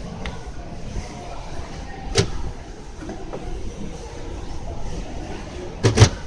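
Steady shop background noise, with a sharp click about two seconds in and a loud double knock near the end.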